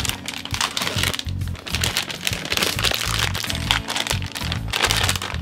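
Background music with a steady beat, over the crinkling of a plastic bag of shredded cheese being handled and opened.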